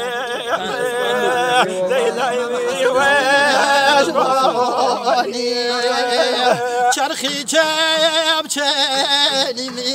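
Men's voices singing a Hawrami (Gorani) Kurdish folk song unaccompanied, with a wavering, ornamented vibrato; several voices overlap.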